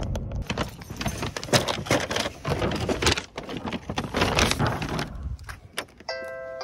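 Paper grocery bags crinkling and rustling, with small knocks, as groceries are set down on a doorstep. A few musical tones start near the end.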